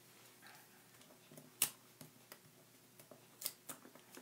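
Faint handling sounds of paper-crafting supplies on a desk: a few light clicks and taps, the clearest about a second and a half in, then a small cluster of them near the end.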